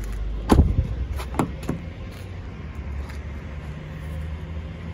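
A car door shutting with a solid thud about half a second in, followed by two softer knocks, over a steady low rumble of wind on the microphone.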